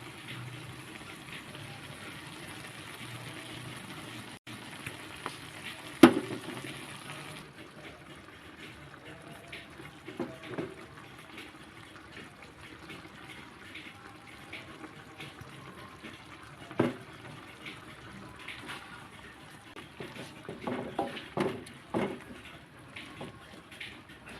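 Kitchen sounds while cooking: a steady rush of running or pouring water for the first several seconds, then separate clattering knocks. A sharp knock comes about six seconds in, another near seventeen seconds, and a quick run of knocks near the end.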